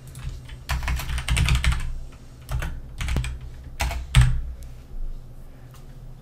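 Typing on a computer keyboard: a quick run of keystrokes about a second in, then a handful of single key presses, the loudest a little after four seconds.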